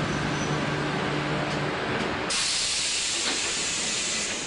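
Shin-Keisei 200 series electric train halting at a platform: a low steady hum, then about two seconds in a loud hiss of compressed air venting from the air brakes that lasts about two seconds.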